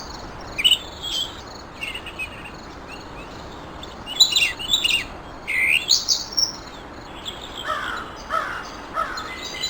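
Several songbirds chirping and twittering in short, quick calls over a steady background hiss; near the end a lower, falling call repeats three times.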